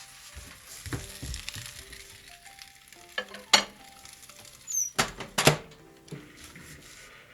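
Miso-marinated redfish sizzling on a hot microwave heating plate, with a few sharp knocks and clicks, the loudest a pair about halfway through.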